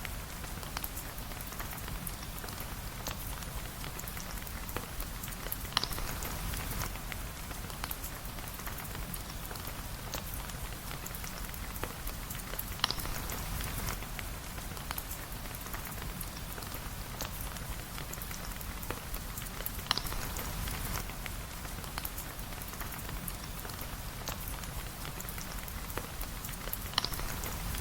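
Steady rain pattering, with many small drops ticking and a low rumble underneath. A sharp pop stands out four times, about seven seconds apart.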